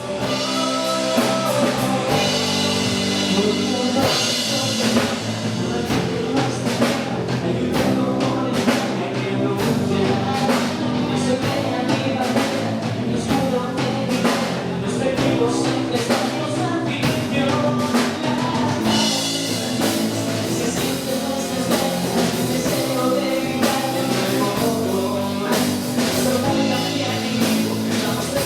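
Rock song played by a band with a full drum kit and singing: a new football club anthem.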